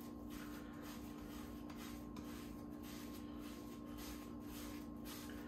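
Faint rubbing of hands rolling a ball of pizza dough on a wooden cutting board, in repeated irregular strokes, over a steady low hum.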